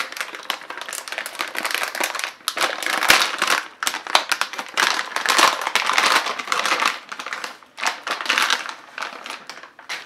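Metallised anti-static bag crinkling and rustling as a graphics card is worked out of it: a run of crackly bursts with a few brief pauses.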